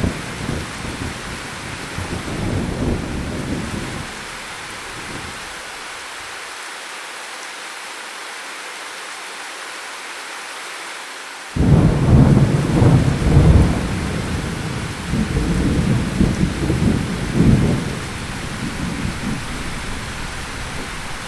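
Steady rain with thunder: a rumble dies away over the first few seconds, then about halfway through thunder breaks suddenly and rolls on in several loud peaks for about six seconds before fading.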